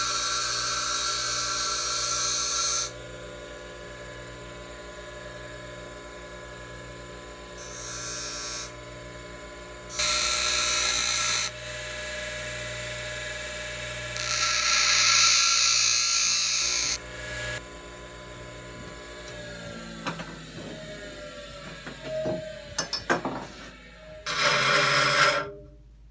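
Bench grinder running with a steady motor hum while a steel screwdriver blade is pressed against the wheel in several separate bursts of grinding, to grind its corners narrower. Past the middle the motor's pitch falls as the grinder winds down, and one more short burst of grinding comes near the end.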